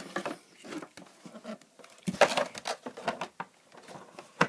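Light plastic clicks and knocks from handling a 1/16-scale RC car, its body being set onto the chassis, with a quick run of clatter a couple of seconds in and a sharper knock near the end.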